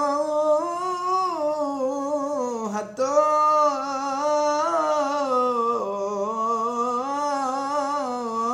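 A man's voice chanting the Torah reading in the Constantine (Algerian Jewish) cantillation tradition, drawing out a long, slowly winding melodic phrase without clear words, with a brief break about three seconds in.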